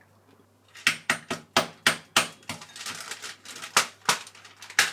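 A series of sharp, crisp cracks at irregular intervals, about a dozen in all, starting about a second in: a hardened sugar coating on candied strawberries (tanghulu) cracking, coated on too thickly.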